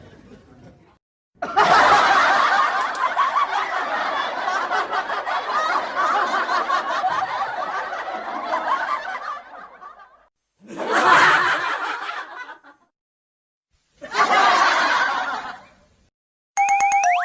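Canned audience laughter sound effects: a crowd laughing for about nine seconds, then two shorter bursts, each cut off abruptly with silence between. Near the end a short chiming sting begins.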